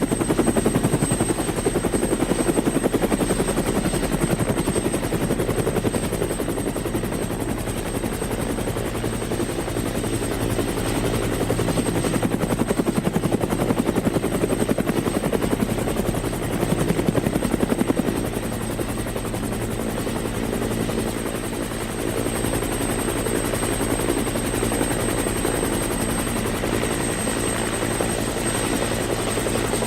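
Helicopter running steadily, its rotor blades beating in a fast, even rhythm, with a thin steady high whine above. It comes in quickly at the start and drops a little in loudness a little over halfway through.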